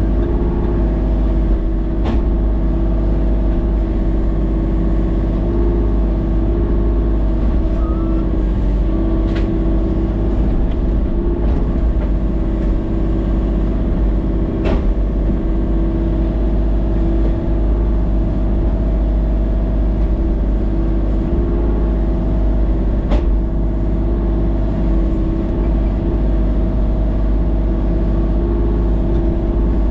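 Tractor engine running steadily, with a few faint ticks over it.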